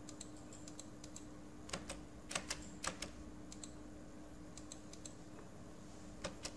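Scattered clicks of a computer keyboard and mouse, a few keystrokes coming in quick little clusters, over a faint steady hum.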